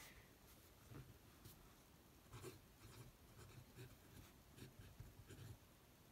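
Faint scratching of a Conklin fountain pen's medium nib on paper, writing a word in short separate strokes.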